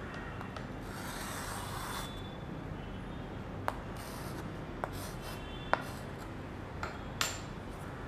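Chalk writing on a school slate: a scratchy stroke about a second in, then a few sharp taps and clicks of chalk against the slate.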